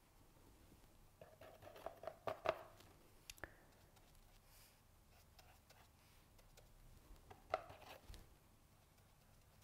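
A paintbrush tapping and scraping against a paint palette and paper: two short clusters of quiet clicks, about a second in and again near the end.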